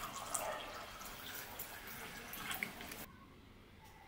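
Water being poured into a glass tumbler, a splashing trickle that stops suddenly about three seconds in.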